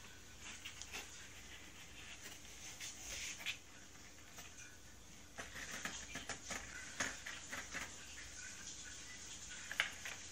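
Cat pawing and batting a coil-spring toy on the floor of a cardboard box: scattered light taps and claw scratches on the cardboard, coming in bunches, with the sharpest taps near the end.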